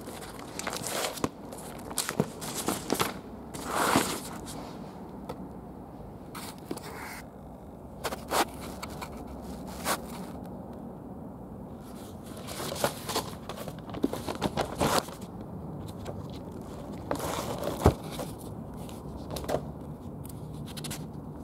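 Paper forms rustling and crinkling as they are picked up and handled, with irregular scrapes and clicks throughout.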